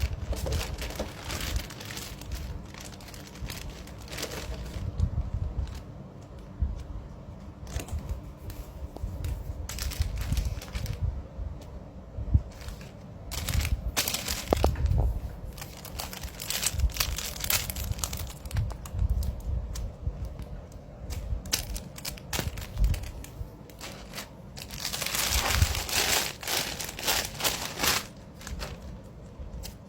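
Plastic wrapping crinkling and rustling in irregular bursts as squishy toys are handled, with a longer, louder stretch of crinkling near the end.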